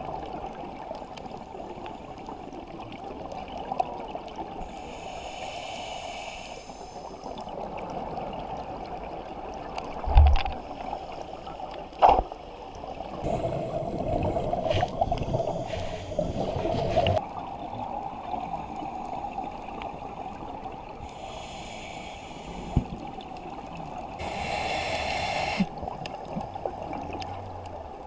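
Underwater sound heard through a GoPro's waterproof housing: a steady muffled hiss with several bursts of bubbling, typical of scuba divers breathing out through their regulators. Two sharp knocks come about ten and twelve seconds in.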